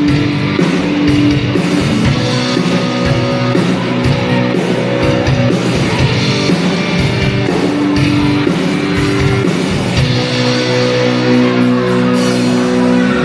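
Live band playing rock music, guitar to the fore, the held chords changing every second or so.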